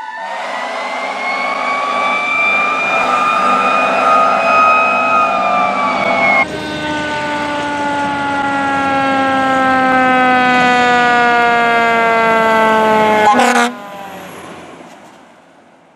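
Fire truck sirens heard in three cut-together pieces. First a wail rises slowly and starts to fall. Then it cuts abruptly to a siren winding down in one long falling glide over a diesel engine's rumble. Near the end it cuts to a much fainter siren that fades away.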